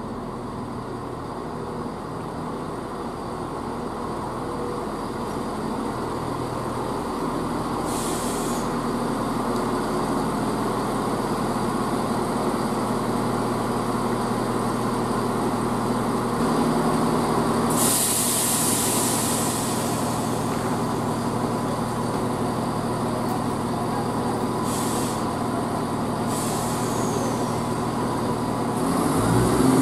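CrossCountry Class 170 Turbostar diesel multiple unit creeping into the platform, its underfloor diesel engines running steadily and growing slowly louder as it draws near. A loud hiss of air about two-thirds of the way in, with shorter ones before and after, is typical of the air brakes. The engine note rises and swells near the end.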